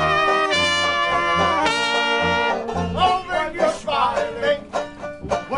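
Traditional jazz band playing: a soprano saxophone holds long notes over sousaphone bass and banjo. About three seconds in, the band members start singing over the banjo.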